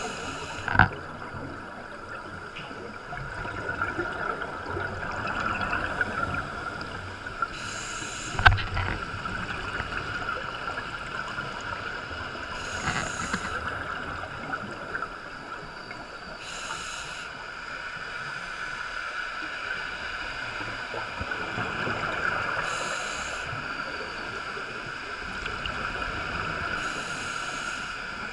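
Underwater scuba breathing: a diver's regulator exhaust bubbles hiss in five short bursts, one every four to six seconds, over a steady hum. A couple of sharp knocks come near the start and about eight seconds in.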